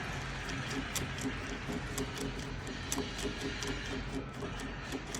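Phillips screwdriver turning out the long retaining screw of a euro profile cylinder, with scattered light clicks and taps of metal on metal about once a second.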